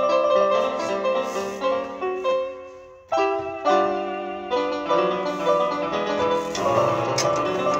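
Solo piano playing a hymn with chords under a melody. The notes die away into a short lull about three seconds in, then a new chord is struck and the playing continues.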